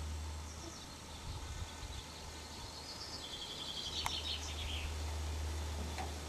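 Strong wind rumbling on the microphone. A small bird chirps in high short notes through the first part, and there is a sharp click about four seconds in.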